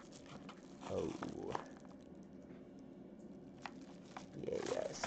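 Yellow padded bubble mailer crinkling and tearing as it is pulled open by hand, with two louder rustles, about a second in and near the end.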